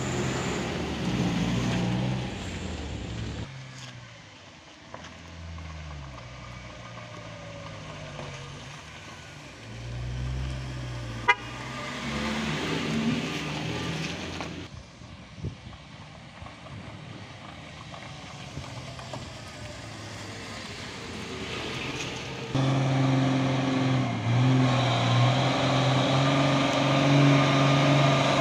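A minivan's engine passes close by, then quieter distant engine sounds. About three quarters of the way through, a medium truck's diesel engine comes in much louder and keeps running steadily as it pulls up the rough road toward the listener.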